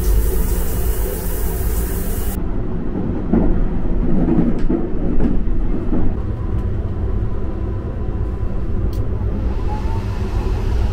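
Handheld shower head spraying water with a strong hiss for about two seconds, cutting off suddenly. Under it and after it runs the steady low rumble of the sleeper train in motion, with a few faint clicks.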